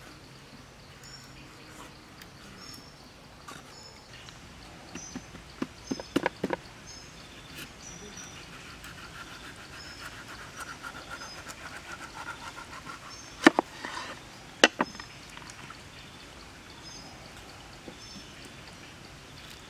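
Kitchen knife working a large cucumber on a wooden cutting board: a quick run of sharp taps about five seconds in, a stretch of scraping, then two loud sharp knocks a little over a second apart. Short high chirps repeat in the background.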